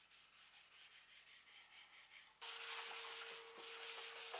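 Spirit stain being rubbed onto a mahogany box, a series of soft, even rubbing strokes on the wood. About two-thirds of the way through, the rubbing suddenly gets louder and a faint steady hum joins it.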